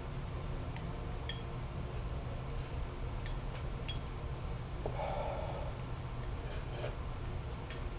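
A man drinking the last of the noodle sauce straight from a ceramic bowl, breathing hard through his nose. There are a few small clicks, and a short slurp about five seconds in.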